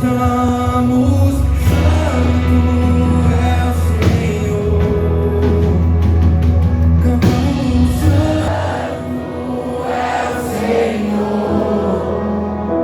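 Christian worship song: a group of voices singing together as a choir over a band with sustained bass notes.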